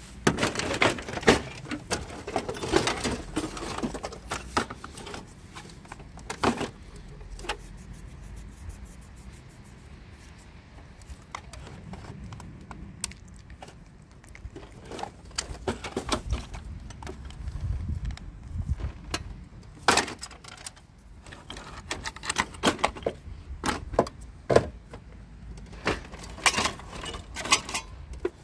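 Scrap metal and plastic power tools, motors and cables clattering and clinking as they are shifted by hand in a scrap heap, in irregular bursts of knocks and rattles.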